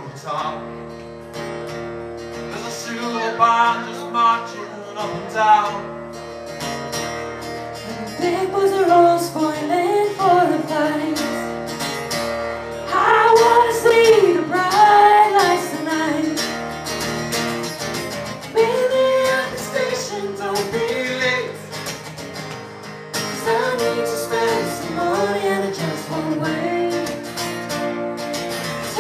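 Live folk band music: singing over acoustic guitar, with the sung melody coming in strongly about eight seconds in.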